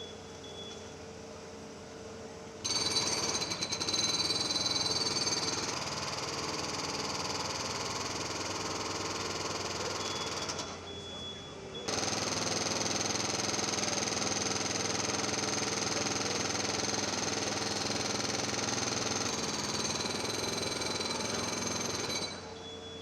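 Jackhammer breaking up pavement: two long runs of rapid hammering, the first from about three seconds in to about ten and a half, the second from about twelve seconds in to near the end, with a quieter machine hum in between.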